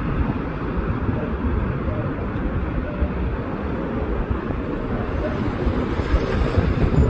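Jet airliner on its landing approach, its engine noise mixed with heavy wind buffeting the microphone. Faint high-pitched whine comes in about five seconds in.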